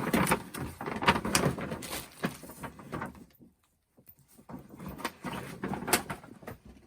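Handling noise from a tote bag being picked up and moved: irregular rustling with soft knocks and clicks, broken by a brief quiet pause about halfway through.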